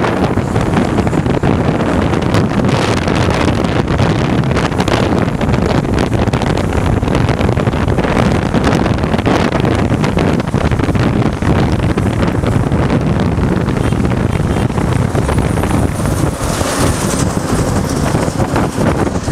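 Wind buffeting the microphone on a motorcycle riding at highway speed, mixed with the bike's road and engine noise into a steady loud rush.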